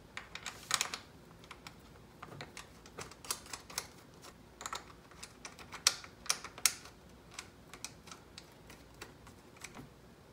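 Irregular light clicks and taps of hand tools and steel bolts while the bracket bolts are threaded in and tightened, with a short cluster about a second in and another around six seconds.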